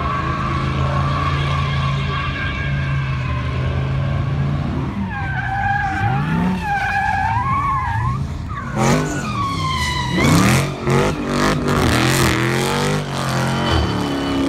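A Dodge performance car's V8 engine runs steadily, then its tyres squeal in a wavering tone from about a third of the way in. Louder engine revs rise and fall with more tyre squeal in the second half as the car is thrown around.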